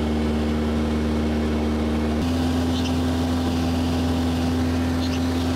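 Mooney M20J's four-cylinder Lycoming piston engine and propeller droning steadily in cruise, with a sudden step in pitch about two seconds in.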